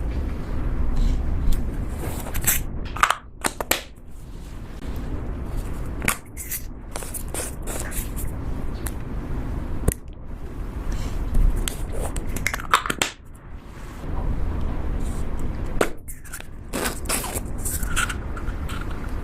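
Slime being worked by hand, with irregular crackling, scraping and squishing noises and a few sharp clicks.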